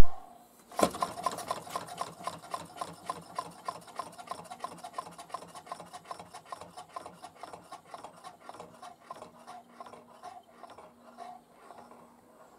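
Unheated Stirling engine's 3D-printed half rhombic drive, spun by hand with a knock about a second in, then coasting down with a rapid, rhythmic ticking that slowly spaces out and fades over about ten seconds. The long coast-down is a sign of low friction in the drive.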